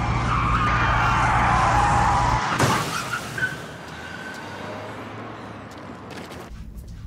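Car tyres screeching in a long skid over a steady engine drone, ending in a crash impact about two and a half seconds in. After the crash the engine drone stops and the sound is much quieter: a road accident.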